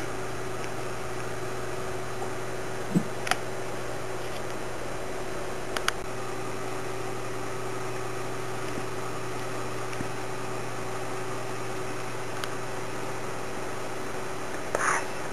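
Steady low hum and hiss, broken by two sharp clicks about three seconds in, two fainter ones just before six seconds, and a brief rustle near the end.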